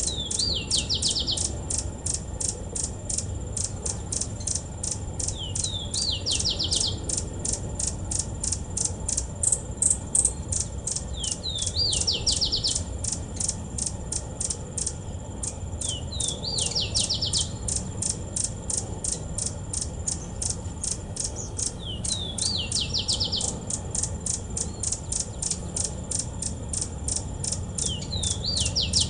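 Insects, likely crickets, chirping in a steady pulse of about three chirps a second. A short bird phrase that rises and then trills repeats about every five and a half seconds.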